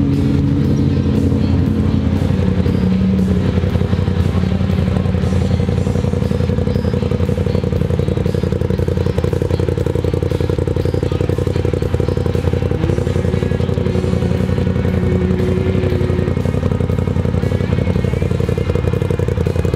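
A UTV's engine running at a steady, fast pace, with music playing over it.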